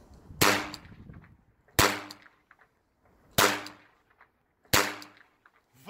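Orion Start Revolver, a toy starter revolver, firing four sharp shots about a second and a half apart, each with a short fading ring.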